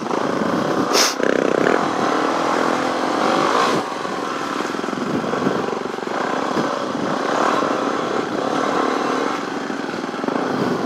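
Suzuki DRZ400E dirt bike's single-cylinder four-stroke engine running under varying throttle while trail riding. A sharp click or knock comes about a second in.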